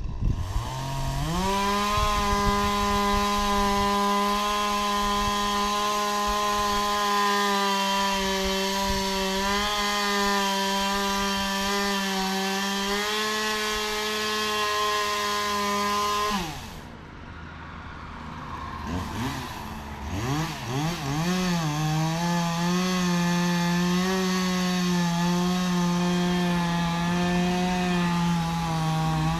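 Gas chainsaw held at full throttle cutting into a tree trunk. About two-thirds of the way through it drops back to a rough idle for a few seconds, then revs up again and keeps cutting.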